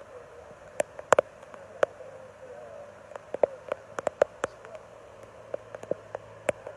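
Rushing floodwater as a faint steady wash, with irregular sharp clicks and taps close to the microphone, a couple a second.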